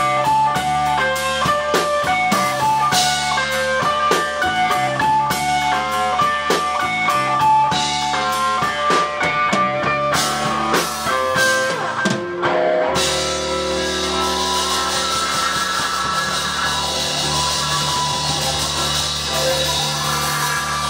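Live rock band: an electric guitar picks a quick line of single notes over a drum kit, then about thirteen seconds in the band opens into a dense, sustained wash of held chords and ringing cymbals.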